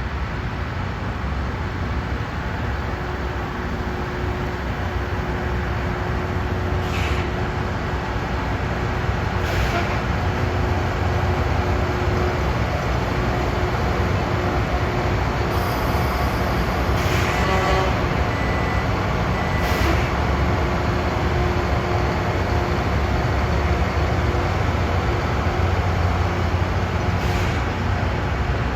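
Rail grinding machine working on the track: a steady, loud mechanical noise with a deep rumble, broken a few times by brief sharp sounds.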